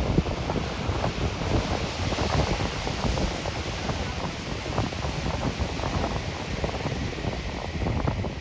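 Wind buffeting the microphone in uneven gusts, with ocean surf hissing behind it.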